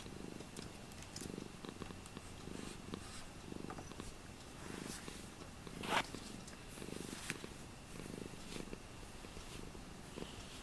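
Domestic cat purring close up, a low rumble swelling and fading with each breath. A single short sharp click about six seconds in is the loudest sound.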